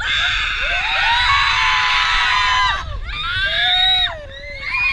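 Several riders screaming together on an amusement ride: one long, high scream of overlapping voices, a shorter one about three seconds in, and another starting near the end.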